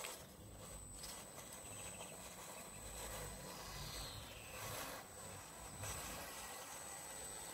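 WPL B24 GAZ-66 6x6 RC truck's small electric motor and gearbox running faintly as it drives slowly past, with a low rumble that swells as it passes and a few light knocks from its wheels on the wooden boards.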